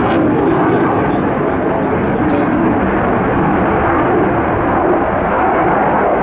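Jet noise from a Saab JAS 39 Gripen's Volvo RM12 turbofan as the fighter flies past, a loud, steady rushing rumble.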